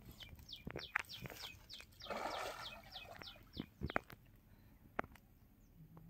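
A bird calling a fast run of about a dozen short, high, falling notes, roughly three or four a second, which then stops. About two seconds in there is a brief rush of noise, and a few sharp clicks are scattered through.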